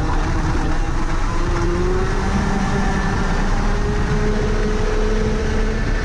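Rotax Max Senior 125 cc single-cylinder two-stroke kart engine under hard acceleration out of a corner, its pitch rising steadily as speed builds, over a steady rush of noise.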